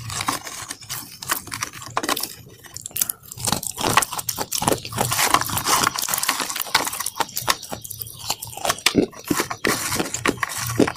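Fingertips pressing into and breaking a brittle brown coating spread in a plastic tray: dense, uneven crackling and crunching with many small sharp snaps.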